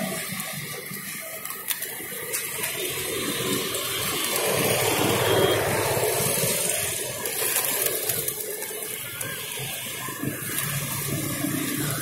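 A large flock of feral pigeons fluttering and taking off, a continuous rushing of many wings with small flaps through it, swelling in the middle.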